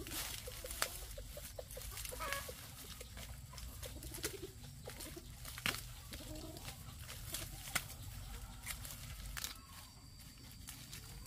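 Chickens clucking in short calls, mostly in the first half, with several sharp clicks or snaps that stand out as the loudest sounds.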